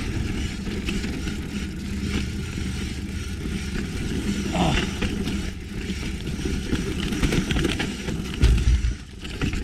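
A hardtail mountain bike going down a steep trail: tyres rolling and clattering over rough ground, with the bike rattling and a steady rush of air over the microphone. A heavy thud comes near the end.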